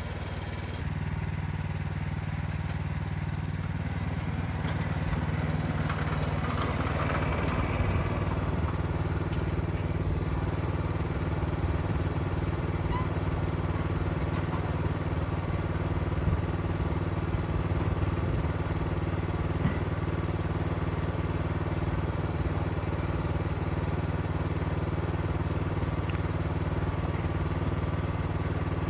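A Wood-Mizer LX55 sawmill's 14 hp Kohler Command Pro engine running steadily, with a few short knocks over it.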